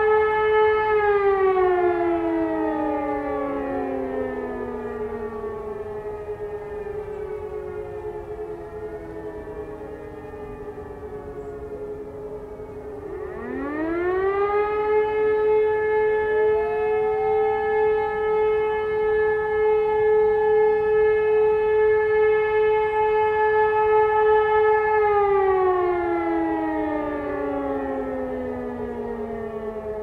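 Several E57 electromechanical motor sirens sounding the 'Feueralarm' test signal. They hold a steady howl, then wind down over several seconds. About 13 s in they wind up again, hold for about 11 s and wind down near the end. A few seconds in, another motor siren that is not part of the official test howls up.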